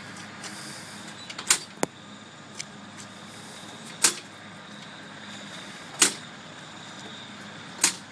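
Propeller of a Kinner B5 radial engine being swung through by hand on a cold start: a sharp snap from the engine about every two seconds as each blade is pulled down, four in all, without the engine firing.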